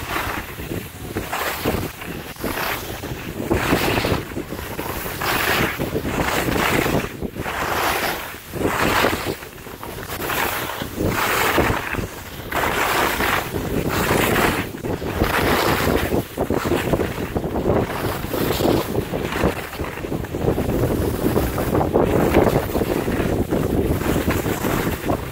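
Skis scraping and swishing on packed snow during a downhill run, surging with each turn roughly once a second, over steady wind noise on the microphone.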